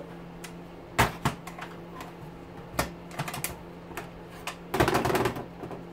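Scattered clicks and knocks of a condensate pump's plastic-and-metal parts being handled and set against a metal workbench, with a short clattering rattle about five seconds in. A steady low hum runs underneath.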